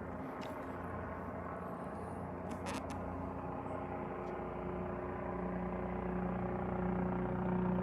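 Life Flight medical helicopter running overhead at a distance: a steady drone of several tones that slowly grows louder as it draws closer.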